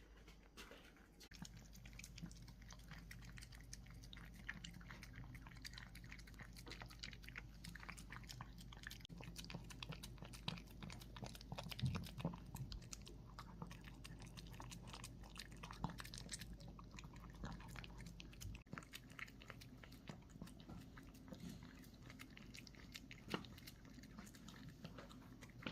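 A Maltipoo dog chewing and biting its food, a steady run of faint quick clicks and small crunches of its eating.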